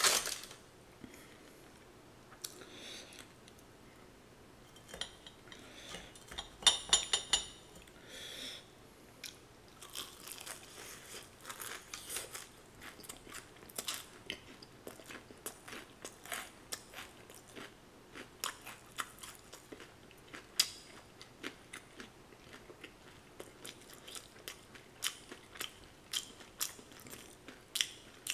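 Crisp fried chicken being bitten and chewed close to the microphone: a run of sharp, irregular crunches. There is a brief louder cluster of crackles about seven seconds in, and the crunching grows denser from about ten seconds on.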